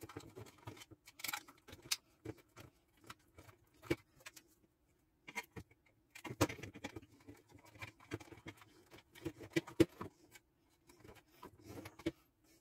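Scattered small clicks, taps and rustles of hands working stiff wires into a plastic electrical gang box, with a faint steady hum underneath; the clicks bunch up a little past the midpoint and again near the end.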